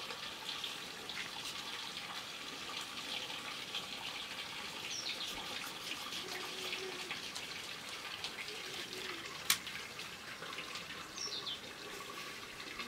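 Water running steadily, as from a tap or pipe, with a bird chirping briefly twice and one sharp click about three-quarters of the way through.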